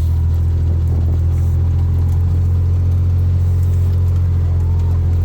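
Side-by-side utility vehicle's engine running steadily at low speed, a constant low hum.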